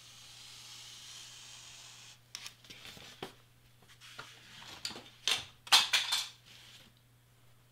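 Craft knife blade drawing a long cut through a sheet of board, a steady scratchy hiss for about two seconds. Then clicks and crackling rustles as the stiff board is turned and shifted on the cutting mat, loudest about six seconds in.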